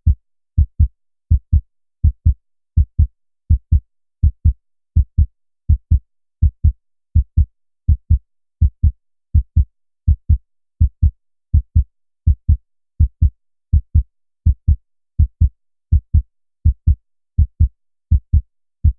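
Heartbeat sound effect: a steady, even run of low, dull thumps, about three a second.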